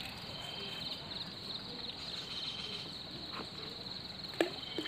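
Crickets chirring: a fast, evenly pulsed high trill with a thinner steady tone beneath it, and a short sharp click about four and a half seconds in.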